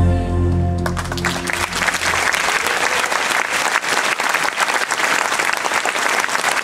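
Held chords of the performance music end about a second in, and a large audience breaks into sustained applause.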